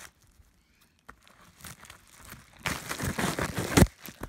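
A padded bubble mailer being crinkled and handled: a short quiet pause, then about a second of plastic rustling that ends in a sharp knock, the loudest sound, near the end.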